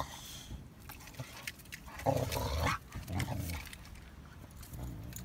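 A small dog and a Boxer scuffling, with rough snarling and growling. It comes in two bursts: a longer one about two seconds in and a shorter one about a second later.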